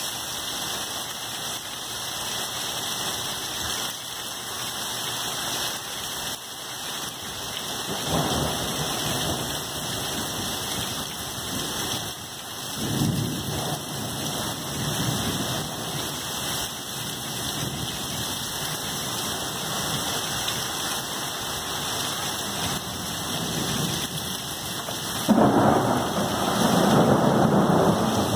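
Heavy thunderstorm downpour: steady hard rain, with thunder rumbling about eight seconds in and again a few seconds later, then a sudden loud thunderclap near the end that rolls on.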